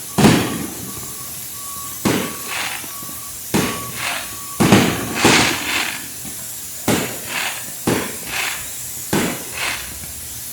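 Aerial fireworks going off: about ten sharp bangs at irregular intervals, some in quick pairs, each with a short echoing tail, sounding like gunshots.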